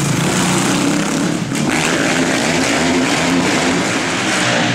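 Motocross bike engine running hard on a supercross track, its note rising and falling as the rider works the throttle.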